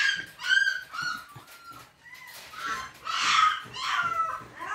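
Newborn Rajapalayam puppies, a few days old, squeaking and whimpering in a string of short, high-pitched cries while nursing. The loudest cry comes about three seconds in.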